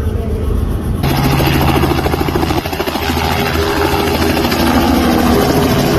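Light helicopter running close by as it lifts off and hovers low: the steady beat of the rotor over engine noise. About a second in, the sound switches abruptly from the muffled drone heard inside the cabin.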